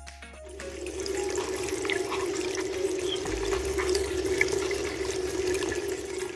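Water running from a tiny tap into a miniature sink as a small potato is washed under it. The flow starts about half a second in and stops just before the end.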